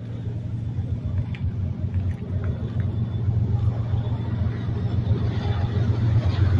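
Diesel locomotives of a BNSF intermodal train approaching, a steady low engine rumble that grows gradually louder as the lead units come into view.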